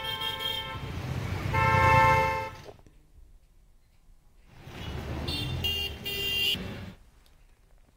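Vehicle horns honking over street traffic rumble: a horn sounds twice in the first two and a half seconds, then a higher-pitched horn sounds from about five to seven seconds in.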